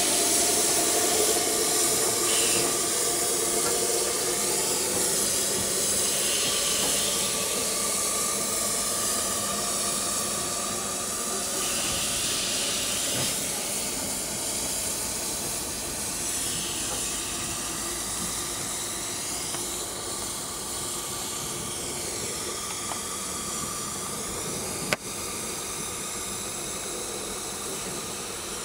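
Steam locomotive letting off steam: a loud, steady hiss that slowly fades, with a single sharp click near the end.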